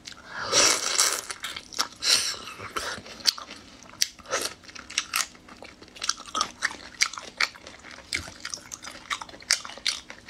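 Person biting into and chewing a sauced shrimp. There is a loud bite about half a second in, followed by many short, sharp, wet chewing clicks and smacks.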